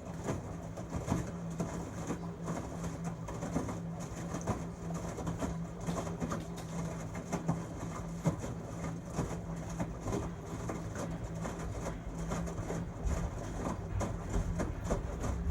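A 13-year-old LG Tromm WD-CR101C front-loading drum washing machine running its quick-wash cycle: a steady hum with many irregular clicks and knocks from the turning drum, the low rumble growing a little in the last few seconds.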